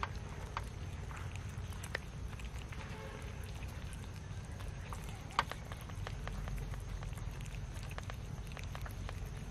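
A group of cats eating soft rice from a metal tray: a continual irregular scatter of small chewing and smacking clicks, with two sharper ticks, about two seconds in and just after five seconds, over a low steady rumble.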